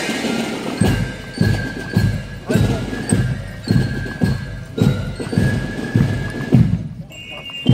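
Marching band music for a street parade: a bass drum beats a steady marching step, a little under twice a second, under held high notes. The playing breaks off briefly near the end.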